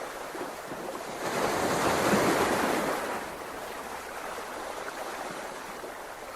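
Ocean waves washing in as a steady rush, with one wave swelling about a second in and fading out a couple of seconds later.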